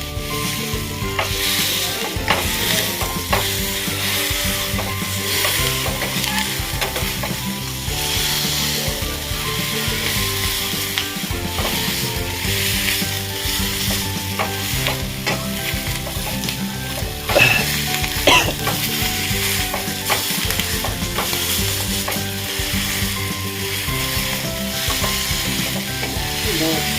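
King chillies sizzling steadily in hot oil while being stirred in the pan, with two brief louder sounds about 17 seconds in.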